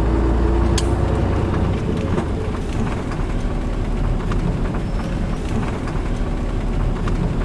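Steady low engine rumble of a truck heard from inside its cab as it sits and creeps in slow traffic.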